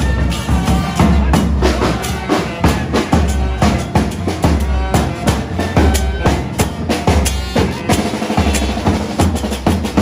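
Chirimía street band playing live: bass drum, snare drum and cymbals keep a driving rhythm, with wind instruments carrying the tune over it.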